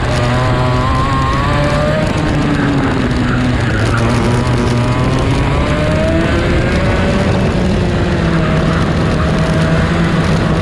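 Onboard sound of a racing kart's two-stroke engine at race pace. Its pitch drops for a corner and climbs again along the straight, with other karts' engines running close by and wind rush over the microphone.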